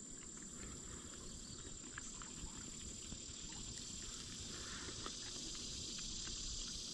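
Insects trilling steadily in the background, one high, unbroken note with a hiss around it, over a low outdoor rumble, with a few faint clicks.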